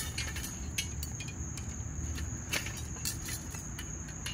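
Crickets chirring in a steady high drone, with scattered light clicks and taps over a low background rumble.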